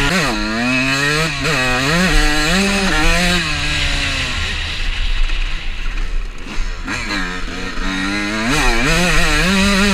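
Honda CR125 two-stroke motocross engine revving hard and rising and falling in pitch again and again as the bike is ridden and shifted. The throttle eases off for a few seconds near the middle, then the engine picks up again in quick bursts of revs.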